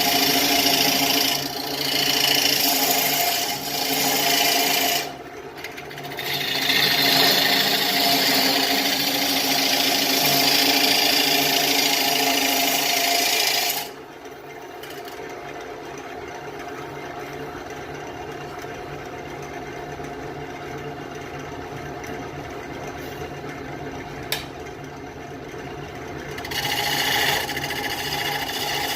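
Wood lathe running with a steady motor hum while a turning tool scrapes into a spinning Russian olive bowl blank. The cut pauses briefly about five seconds in and stops about halfway, leaving only the lathe's hum with a single click. Cutting resumes near the end.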